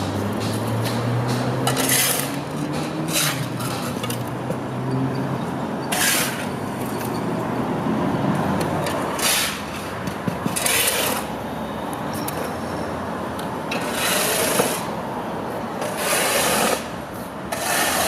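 Steel shovels scraping across a concrete slab as rubble and dust are scooped into a wheelbarrow, one rasping scrape every second or few seconds. A vehicle engine hums for the first few seconds.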